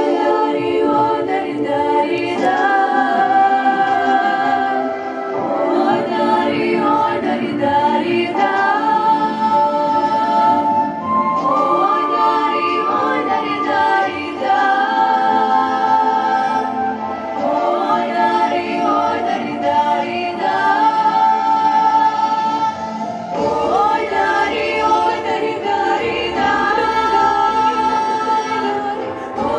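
Female vocal ensemble of four voices singing a Russian folk-style song together in harmony, with long held notes that break off every few seconds for a breath.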